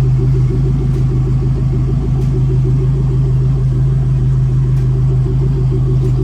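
Fuel-injected outboard motor idling steadily on flushing earmuffs, running on its winterizing fuel-stabiliser mix.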